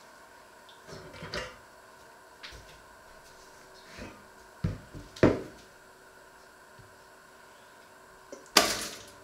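Kitchen items being handled on a wooden worktop and cutting board: a few scattered light knocks and clatters, with the loudest, sharpest one near the end.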